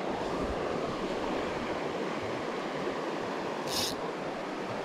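Steady rush of a shallow river flowing over gravel, with one short high hiss a little before the end.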